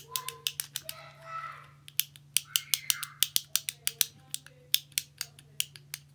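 Fidget cube's small toggle switch being flicked back and forth, a fast run of sharp plastic clicks at about four a second.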